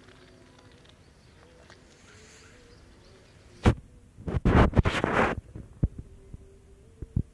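Handling noise on a phone's microphone: a faint low hum, then a sharp knock a little past halfway, followed by about a second of loud rubbing bumps and a couple of small clicks near the end.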